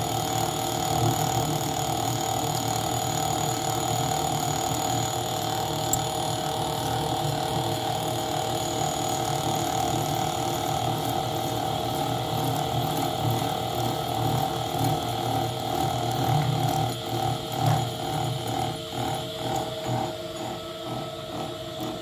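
Vintage Ajax horizontal milling machine running at about 100 rpm, driven by an 8-pole three-phase motor on a VFD, its 5-inch cutter taking a cut about 8 mm deep in aluminium. Steady drive tones sound under the noise of the cutting, and for the last few seconds the sound pulses evenly, about twice a second.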